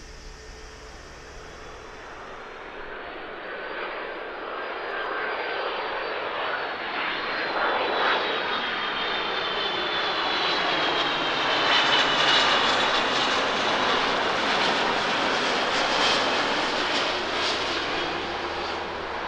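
Airbus A330-300 jetliner with Pratt & Whitney PW4168A turbofans on final approach, gear down, passing the listener. The engine noise swells as it nears, with a high whine that slowly falls in pitch. It is loudest a little past the middle, then eases off.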